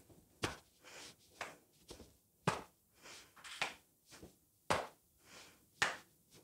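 Hands patting the knees in turn, keeping a steady beat of about two soft pats a second that alternate stronger and weaker.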